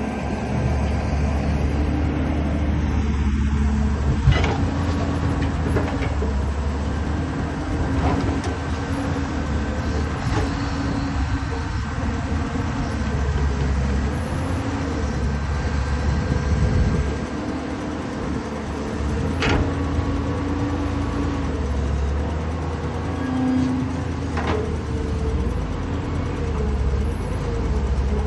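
Diesel engine of a Caterpillar 320D hydraulic excavator running as it digs, its note swelling and easing with the load, with a few sharp knocks from the machine working.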